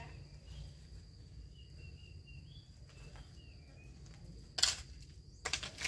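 Garden hoe striking stony soil: one sharp chop near the end, then a quick cluster of strikes a second later. Under it runs a steady high insect trill, with a few bird chirps early on.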